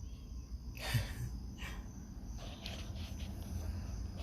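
Crickets chirping faintly and steadily, with two brief soft noises about a second in.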